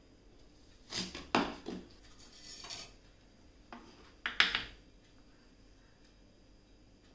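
Kitchen knife cutting an onion on a wooden chopping board: three quick knocks of the blade on the board about a second in, a short rustle, then a few more knocks near four seconds in.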